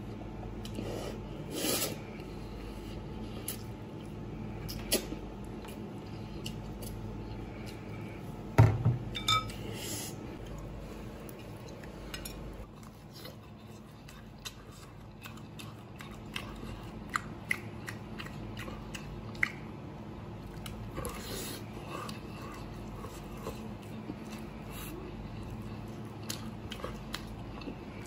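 Close-up eating: noodles slurped and chewed, then bites taken from a roast leg of lamb and chewed. Scattered light clicks and one sharp knock about eight and a half seconds in, over a steady low hum.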